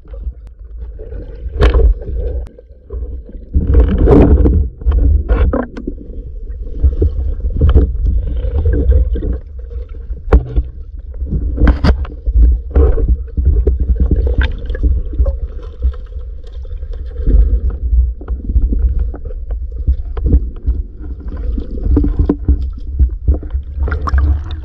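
Muffled underwater sound heard through a camera housing: a continuous low rumble of moving water, with scattered sharp clicks and knocks.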